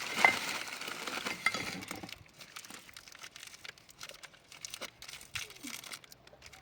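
Crinkling, rustling handling noise with a sharp click about a quarter second in, busiest for the first two seconds and then dying down to faint scattered clicks.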